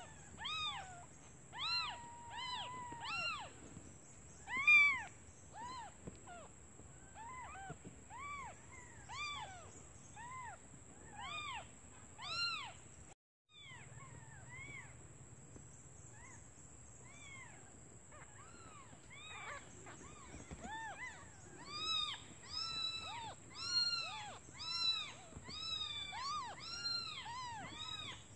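Newborn kittens mewing over and over, short high cries that rise and fall, one after another, with a brief break about halfway and the cries coming faster near the end. They are calling for their mother because they are hungry.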